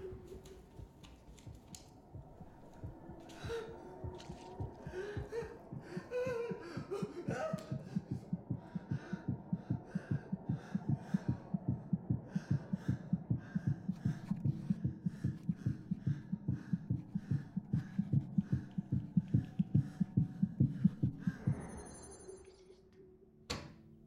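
A fast, steady thumping pulse of about three beats a second that builds and then stops near the end, preceded by wavering, gliding tones.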